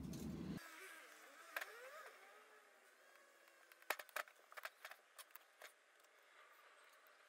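Faint clicks and taps of a rear brake caliper and its rubber slider boots being handled and fitted on a workbench: one click about a second and a half in, then a quick cluster of clicks and taps around four to six seconds in. A low hum cuts off suddenly just after the start.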